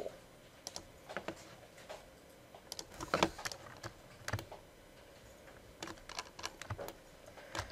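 Sparse, faint clicks of a computer mouse and keyboard, a few at a time with short pauses between them.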